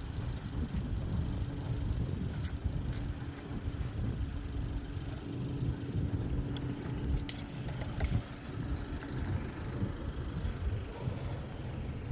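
A vehicle engine idling steadily, a constant low rumble with a steady hum, with scattered light clicks over it.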